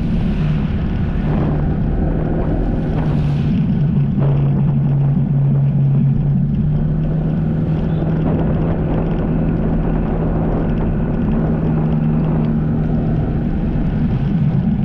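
Jet ski engine running steadily at a constant pitch.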